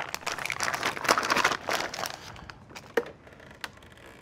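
Plastic vacuum-seal bag holding sliced meat and marinade crinkling as it is handled and the marinade is worked around the meat, dense for about two seconds, then quieter with a couple of light clicks near the end.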